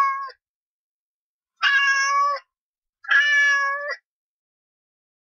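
A domestic cat meowing: the end of one meow, then two more, each just under a second long and fairly steady in pitch.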